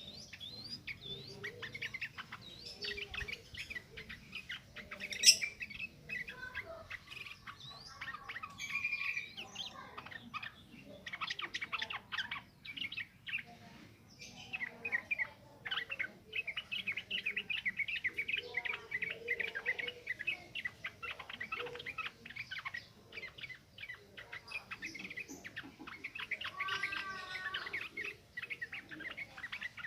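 Sooty-headed bulbul (trucukan) singing in long, fast chattering runs of short chirps and warbles. A single sharp click about five seconds in is louder than the song.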